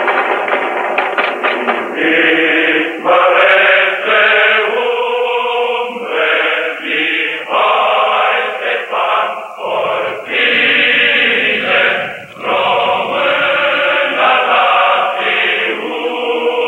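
A choir chanting in a series of long held phrases with short breaks between them, in the manner of a liturgical or mourning chant.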